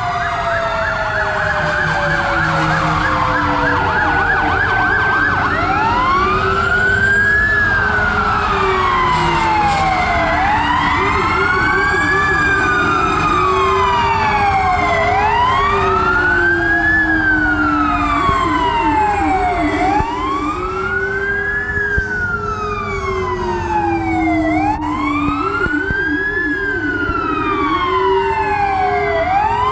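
Several fire truck sirens sounding together. One wails up and down about every five seconds. A lower one switches between a slow wail and a fast warble, over the rumble of slow-moving truck engines.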